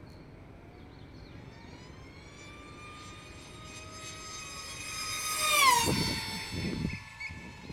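Multiplex FunJet Ultra 2 RC jet's electric motor and propeller whining in a high-speed flyby. The whine grows louder and higher, peaks a little over five seconds in, then drops sharply in pitch as the plane passes (Doppler shift). A low rumble follows the pass.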